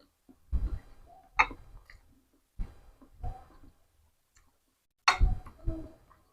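Close-up eating sounds of a person chewing seblak (rice vermicelli, soaked crackers and cabbage): short wet smacks and mouth clicks in irregular bursts, about six of them, the loudest about five seconds in.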